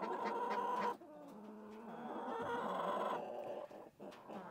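Chickens clucking and calling, with two drawn-out calls, the second one longer.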